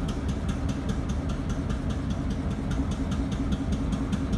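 Delaware and Hudson diesel locomotive's engine idling unevenly, with a steady low rumble and a rapid regular ticking on top. It is the sound of a misfiring engine, which the onlooker thinks may be down to faulty injectors.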